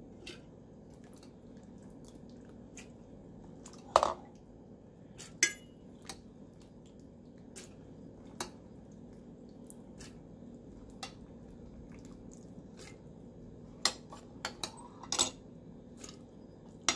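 Metal spoon and tongs clinking against a glass jar and a glass bowl as pickled chiles are scooped into the jar: about ten scattered sharp clinks, the loudest about four seconds in and again near fourteen seconds.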